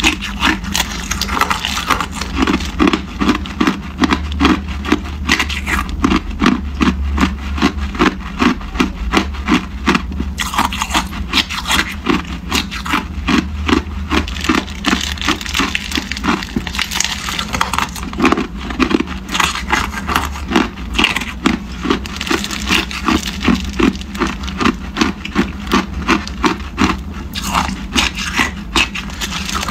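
Hard clear ice being bitten and chewed, a steady run of loud crunches at about two a second, with the plastic bag holding the ice crinkling and rustling in the hands.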